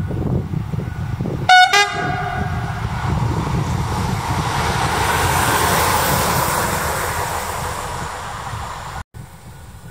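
Newag Dragon locomotive running light, sounding one short horn blast about a second and a half in. Its running noise then swells as it passes close and fades as it moves away, and the sound cuts off abruptly near the end.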